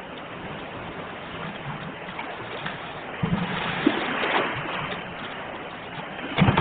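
Ocean waves washing on a shore: a steady hiss of surf that swells louder about halfway through and again near the end as waves break.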